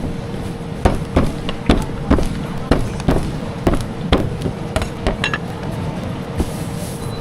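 Repeated sharp knocks of utensils at a food stall, uneven, about two a second, over a steady low hum.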